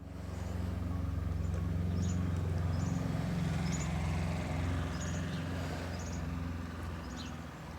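A steady low motor hum, with a small bird chirping over it in short, high chirps about once a second.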